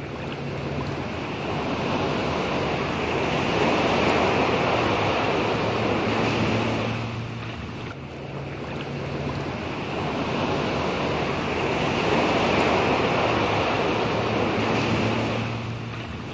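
Rushing, surf-like noise that swells and fades in two long waves, with a faint steady low hum beneath.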